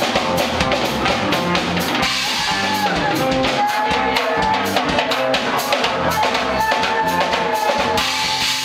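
Live band playing, a drum kit keeping a steady beat with bass drum and snare under held guitar notes and bass.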